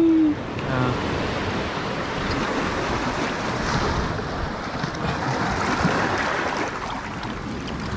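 Sea surf washing and breaking over shoreline rocks, a steady rushing.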